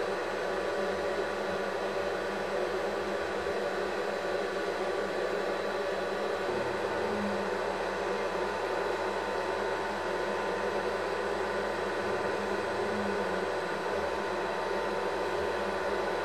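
Steady mechanical whir with hiss, unchanging, with a few faint high steady tones over it; a further faint tone comes in about six seconds in.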